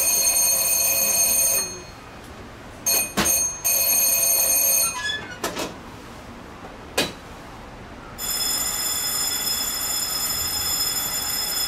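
Electric bell ringing at the cable-car station: two rings of about two seconds each, a few sharp clicks, then a long steady ring from about eight seconds in. It signals that the Eizan Cable car is about to depart.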